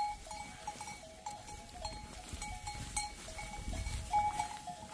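Small bells worn by a flock of sheep, clinking irregularly as the animals move and feed.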